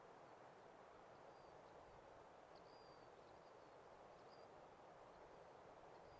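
Near silence: a faint steady hiss of open-air ambience with a few faint, distant high bird chirps and whistles here and there, the longest a short whistle about two and a half seconds in.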